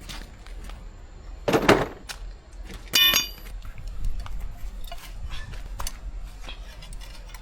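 Metal hand tools clinking and clattering as they are handled for a wheel and brake job. There is a louder rough clatter about a second and a half in, and a single ringing metal clang about three seconds in.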